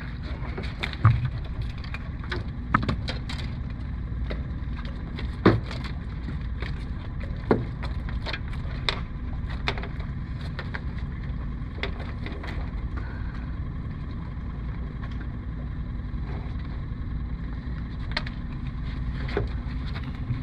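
Steady low rumble on a boat, with scattered sharp knocks and taps against the boat, about a dozen in all, loudest about a second in and again near five and a half seconds.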